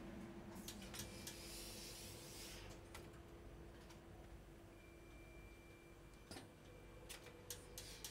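Faint, steady hum from a professional trousers-pressing machine, with scattered light clicks of garment handling and a brief hiss about one and a half seconds in.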